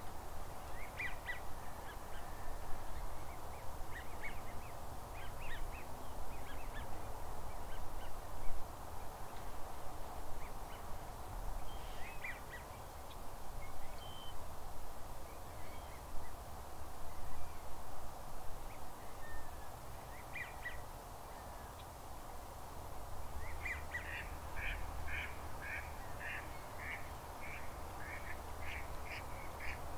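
Ducks and geese calling: scattered short calls, then a quick run of repeated calls, several a second, in the last several seconds, over a steady background hiss.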